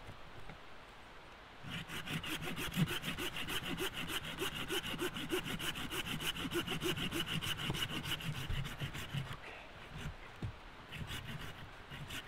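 Hand-held blade sawing through a small dead branch on a tree, in a fast, even run of back-and-forth strokes that starts about two seconds in and stops a few seconds before the end, followed by a few scattered scrapes.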